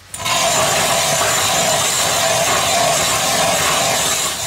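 Hand-cranked ice auger boring through thick lake ice, its blades shaving the ice in a steady grinding scrape that starts abruptly just after the beginning.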